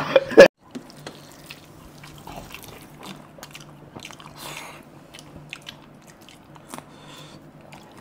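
Quiet eating by hand: fingers working rice and curry, soft chewing and small mouth clicks, over a faint steady hum. It opens with the last half second of a loud exclamation.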